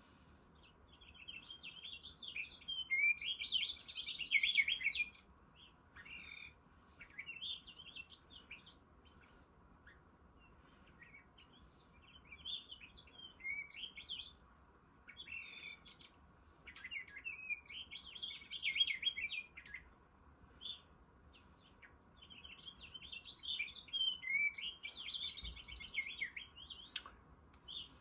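Male purple finch singing: long, rapid, jumbled warbling songs in three main bouts, with a few thin high notes between them.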